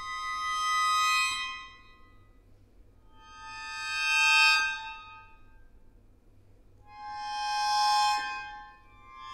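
Solo accordion holding sustained high chords that swell up and fade away, three times, with short near-quiet gaps between them.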